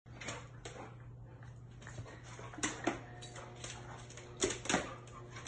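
Two dogs play-fighting on a tiled floor: claws clicking and scrabbling on the tile, with louder scuffles about two and a half seconds in and again after four and a half seconds.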